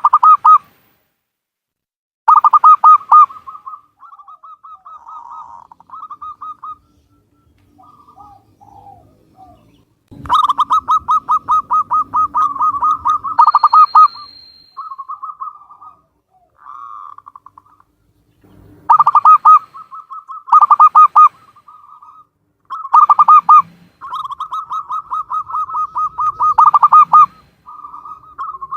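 Zebra dove (perkutut) singing: phrases of rapid staccato cooing notes on a steady pitch, each lasting a few seconds and separated by short pauses.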